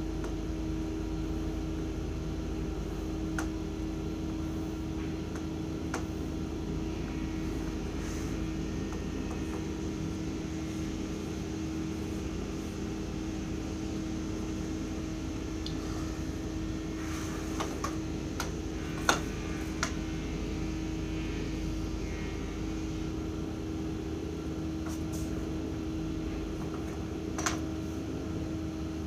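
Steady hum of a window air conditioner running, with a few short taps of pencil and drafting tools on the drawing table, the loudest about two-thirds of the way through, and a sheet of paper handled near the end.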